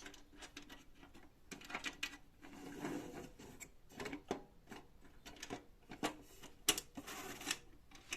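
Metal parts of a benchtop table saw being handled and fitted by hand: irregular clicks, light knocks and rattles with a few short scraping slides, the loudest scrape near the end.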